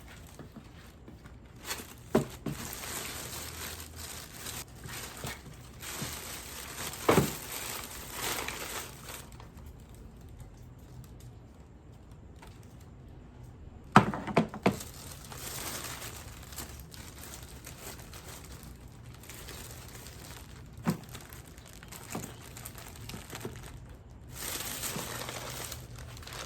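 Plastic packaging being handled and crinkled, with a few sharp knocks of objects set down, the loudest about halfway through.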